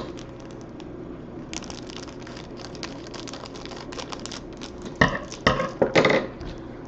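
Trading card pack wrappers crinkling and crackling as cards are unwrapped and handled, with many small clicks and a few louder crinkles about five to six seconds in.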